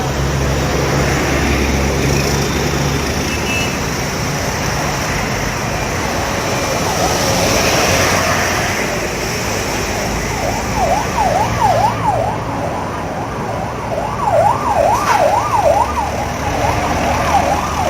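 Road traffic and large engines running as a bus convoy passes, then from about ten seconds in a siren yelping, its pitch sweeping rapidly up and down a few times a second, in several runs.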